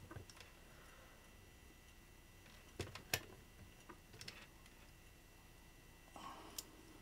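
Near silence broken by a few faint clicks from a digital multimeter being worked by hand, its dial or buttons. There are two sharper clicks about three seconds in, a third of a second apart, then a short rustle and a click near the end.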